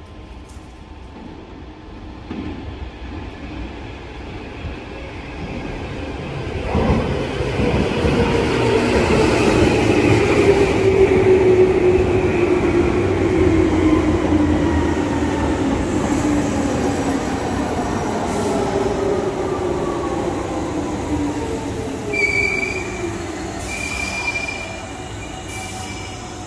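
Red Meitetsu electric train pulling into an underground platform. Its motor whine falls steadily in pitch as it slows, over the rumble of wheels on rail, and there are a few short high brake squeals near the end as it draws to a stop.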